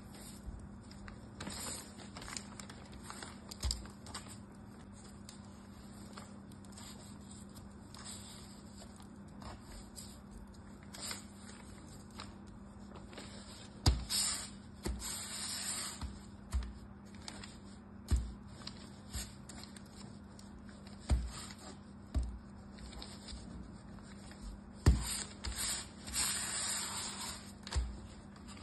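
Crumbly soap-and-starch mixture crunching and crackling as it is squeezed and pressed together by hand, with occasional sharp thumps as it is pressed down onto the table.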